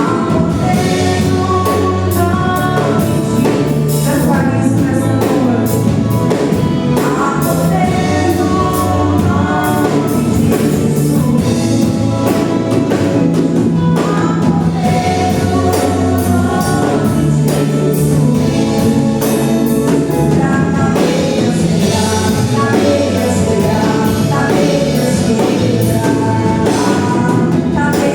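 Gospel worship song with voices singing together over a band with drums, playing at a steady loud level.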